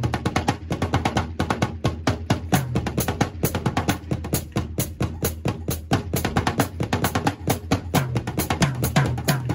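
TAMA Cocktail-JAM compact acoustic drum kit played with sticks: a dense, fast stream of strokes on the snare and toms with the bass drum underneath.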